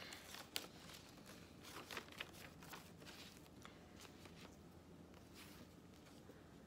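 Faint paper rustling and crinkling as a folded, taped paper page is handled and opened out, with a few soft clicks and crackles mostly in the first three seconds.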